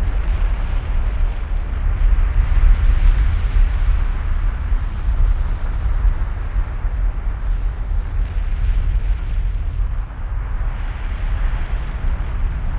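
Kilauea's lava fountain erupting in Halemaumau Crater: a continuous deep rumble with a rushing hiss that swells and eases every few seconds.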